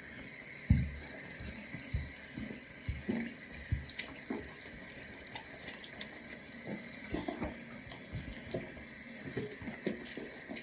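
Tap water running into a sink while a sneaker is rinsed and handled in it, with irregular soft knocks and splashes throughout, the loudest about a second in.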